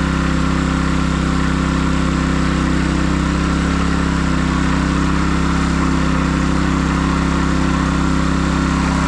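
Small petrol-engine water pump running steadily at an even speed.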